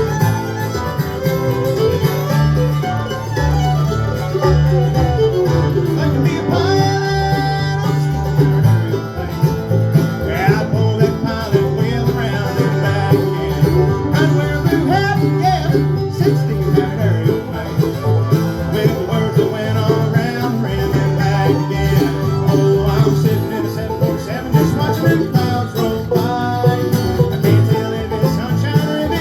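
Bluegrass band playing an instrumental break with banjo, guitar and fiddle, no vocals.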